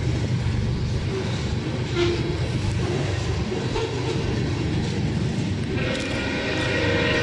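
Freight train of tank cars rolling past close by: a steady rumble of steel wheels on rail. About six seconds in, a steady high pitched tone joins the rumble.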